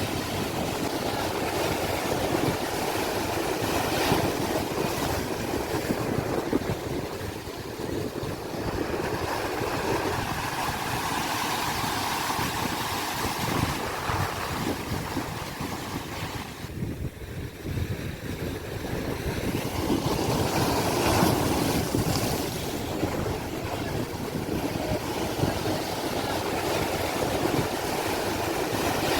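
Sea waves washing in and breaking, a steady rush of surf that swells and ebbs, dipping briefly a little past the middle.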